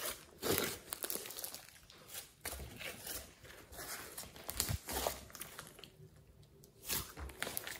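Glossy slime mixed with clay and glitter being squeezed, pressed and pulled apart by hand, giving irregular sticky crackles and pops as the air pockets burst and the slime tears.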